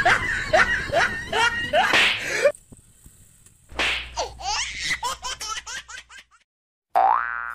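Dubbed-in laughter sound effect, a run of short falling 'ha-ha' notes that cuts off about two and a half seconds in. After a short gap comes a second burst of quick sweeps and clicks, and just before the end a rising cartoon boing begins.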